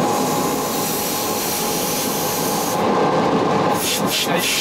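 Running noise heard inside the cab of the Sécheron T9 electric locomotive as it rolls slowly along the track: a steady rumble and rubbing, with a few short bursts of hissing near the end.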